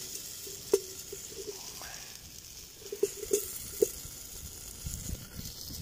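Nettle tips and wild mushrooms sizzling with a steady hiss in a stainless steel pot over a campfire. A few sharp clicks come through it, one about a second in and two more past the three-second mark.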